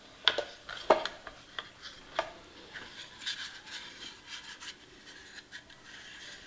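Handling noise from a sewing machine foot control and its cord: the plastic plug and connector knock and click sharply a few times in the first couple of seconds, then give way to softer rubbing and rustling as the cord and the plastic pedal are turned over in the hands.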